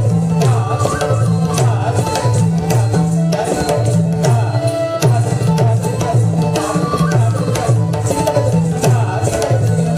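Odissi dance accompaniment: a mardala barrel drum playing a fast rhythmic pattern of pitched strokes that alternate between a low and a higher tone, with manjira hand cymbals and a melody above.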